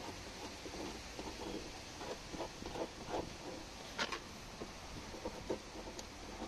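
Fingernail rubbing back and forth over typewriter carbon paper taped onto a stamped chassis number, a run of short irregular scratching strokes, with a sharper click about four seconds in.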